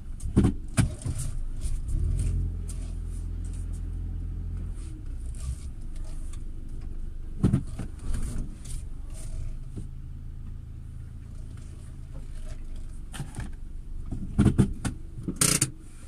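Car driving slowly, heard from inside the cabin: a steady low engine and road hum with several sharp knocks and rattles, clustered near the start, about halfway through and near the end.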